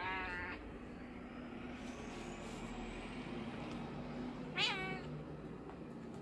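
Domestic cat meowing twice: a short meow right at the start and a louder one about four and a half seconds in.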